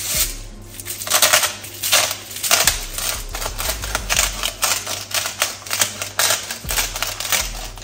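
Coarse salt being sprinkled over focaccia dough topped with tomatoes and oil: a run of quick, irregular crackling clicks.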